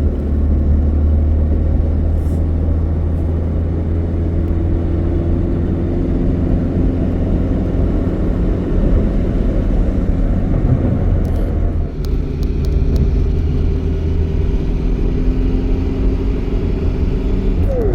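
A car driving, with a steady low engine and road rumble and a few light rattles about two-thirds of the way through.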